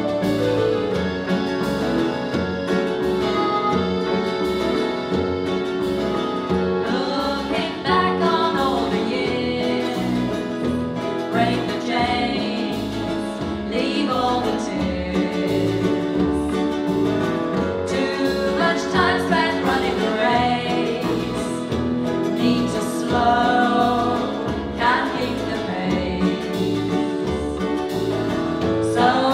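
A live country-style song played by a band of keyboard, guitars, accordion and hand drums; female vocals come in about seven seconds in and carry on over the band.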